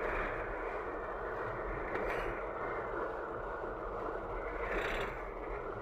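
Steady road noise of a vehicle driving, an even rush with a low rumble, swelling briefly about two seconds and five seconds in.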